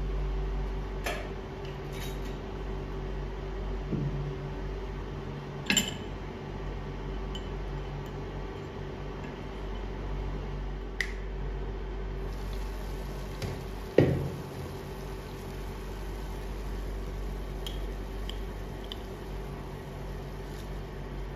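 A metal spoon clinking against a small ceramic bowl resting on a stainless steel pot lid: a few separate clinks, the loudest about 14 seconds in, over a steady low hum.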